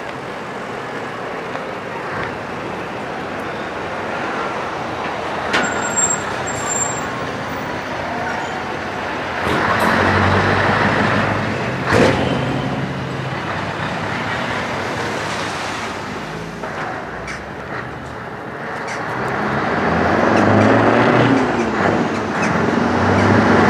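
Scania 143 V8 trucks drive past one after another, their engines rumbling and growing louder as each one approaches, loudest near the end. A sharp click comes about halfway through.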